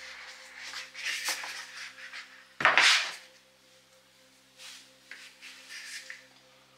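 A rigid cardboard gift-box lid sliding and rubbing as it is lifted off. About two and a half seconds in there is a single loud knock as it is set down on the wooden desk. After that comes soft rustling as a foam packing sheet is peeled back.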